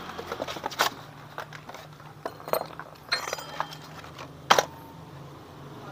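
Hand tools and loose metal parts clinking and knocking irregularly while a scooter's CVT pulley assembly is taken apart. The loudest is a sharp metallic clank about four and a half seconds in that rings briefly, over a faint steady low hum.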